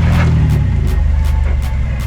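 Background music with a steady beat, over a vehicle engine running low.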